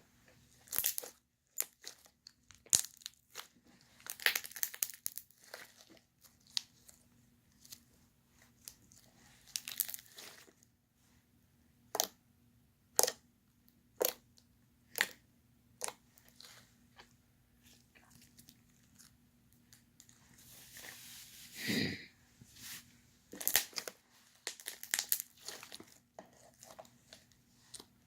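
Clear slime being squeezed and stretched by hand, giving scattered sharp pops, crackles and squelches as air bubbles in it burst. About 21 seconds in comes a longer squelching hiss that ends in a loud pop.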